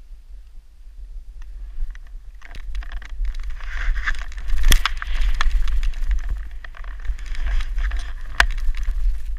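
Snowboard sliding and scraping over snow during a descent, a hiss that builds from about two and a half seconds in, broken by scattered clicks and two sharp knocks. Wind rumbles steadily on the helmet-mounted microphone.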